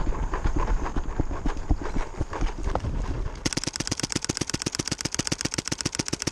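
Irregular knocks and rustling with a low rumble, then, about halfway through, a mechanical paintball marker fires a rapid, very even string of shots, about ten a second.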